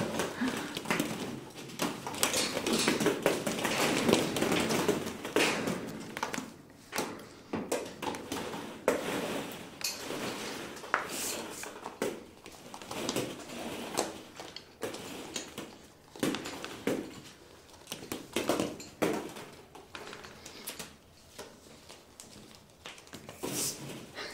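Hollow plastic ball pit balls rustling and clattering, with irregular light knocks and taps, as a capuchin monkey moves among them.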